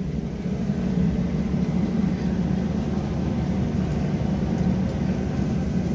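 Steady low engine drone, running evenly without change.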